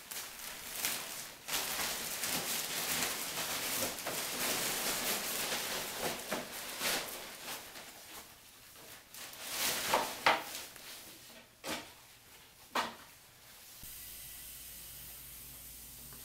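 Black plastic garbage bag rustling and crinkling as broken pieces of popcorn-ceiling sheetrock are scraped together and loaded into it, with a few sharp knocks of pieces dropping later on. Near the end the sound cuts to a steady faint hiss.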